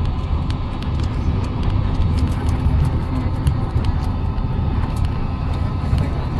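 Steady low engine rumble with a faint steady hum above it and a few light clicks.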